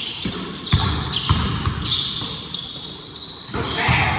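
Basketball bouncing on a gym floor: a few dribbles in the first second and a half and more near the end, with high-pitched sneaker squeaks throughout.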